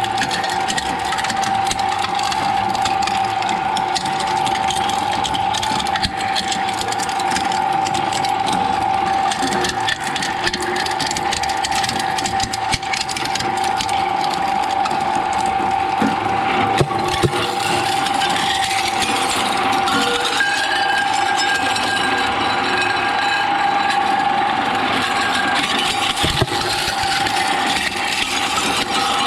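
Shredder machine running, a steady motor whine under dense, continuous crackling and grinding as material is fed through its cutters.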